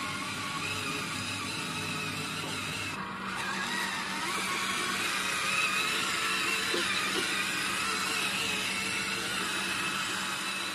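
Huina 1561 1/14-scale RC fire truck's electric drive motor and gearbox whining, wavering in pitch, with a short drop about three seconds in, as the truck strains without climbing: it is stuck on the ramp with its body caught.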